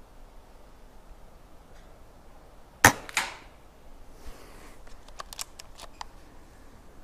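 Gamo Phox PCP air rifle fired once: a single sharp shot, followed about a third of a second later by a second, quieter crack. About a second after that comes a run of short, sharp mechanical clicks as the bolt is worked.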